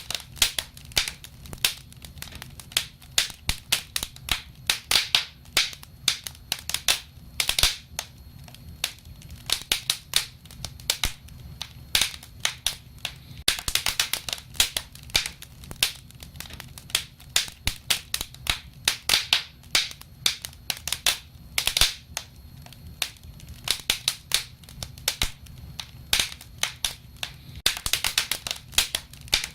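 Wood fire crackling, with dense irregular snaps and pops over a low steady rumble.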